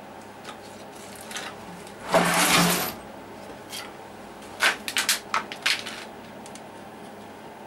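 Handling noises from hookup wires and connector being worked by hand: a brief rustling scrape about two seconds in, then a quick run of sharp clicks and taps around the middle.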